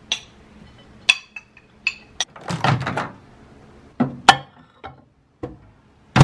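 Dishware clinking and knocking as food is tipped from a plastic container onto a ceramic plate and the plate is put in a microwave, with a short stretch of scraping and sliding near the middle. It ends with a sharp clunk as the microwave door is shut.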